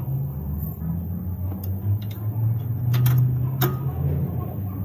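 Steady low machine hum, swelling a little after three seconds in, with a few sharp metallic clicks and clinks as a new rear shock absorber is worked into its lower mounting bracket.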